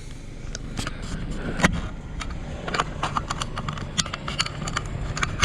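Scattered light clicks and knocks of objects being handled and shifted in a rubbish pile, over a low steady rumble.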